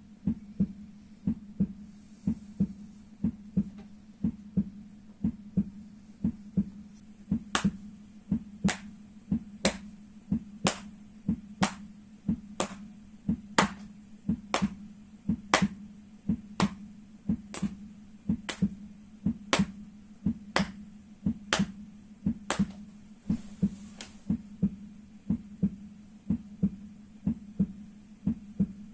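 Heartbeat sound, a steady lub-dub about once a second over a low hum. From about seven seconds in until about twenty-two seconds in, sharp slaps fall in time with it about once a second: the soles of the feet being struck in the rhythm of the heart.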